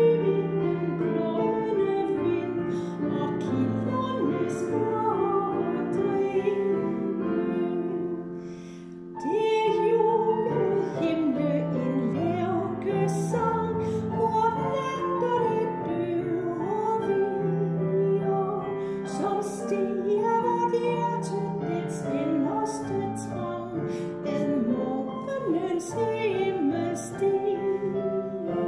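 Female solo voice singing a Danish hymn in a classical style, accompanied by piano, with a brief lull about eight seconds in.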